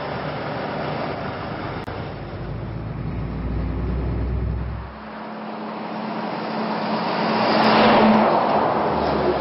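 Volvo FH12 semi-truck on the road: a steady low engine-and-road rumble as heard from inside the cab, then, after a cut about five seconds in, the truck and trailer driving close past with tyre and engine noise. The pass-by swells to its loudest near the end and then falls away.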